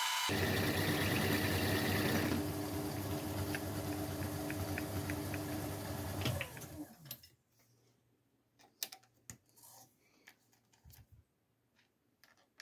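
Metal lathe turning a bolt, the cutting tool scraping through the metal over the motor's steady hum, with light ticks of swarf. About six seconds in the lathe is switched off and spins down, falling in pitch. A few faint clicks follow as the chuck is handled.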